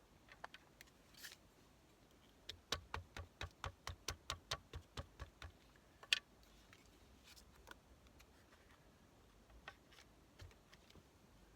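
A quick run of small sharp clicks, about four a second for some three seconds, then one louder click, with a few faint ticks scattered around them.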